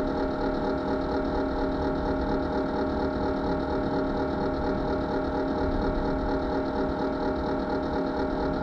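Steady whirring machine hum with several fixed tones, unchanging in level.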